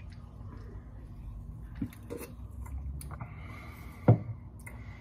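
A man drinking soda from a can, with soft swallowing sounds and small clicks. About four seconds in comes a single sharp thump, the loudest sound.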